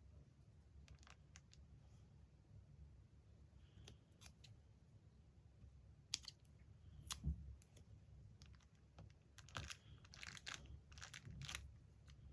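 Scissors snipping magazine paper, with paper being handled: quiet, scattered clicks and snips, then a quick run of snips near the end.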